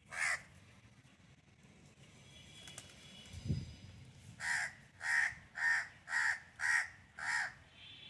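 A bird calling with harsh, caw-like calls: one at the start, then a run of six about half a second apart. A brief low thump comes midway.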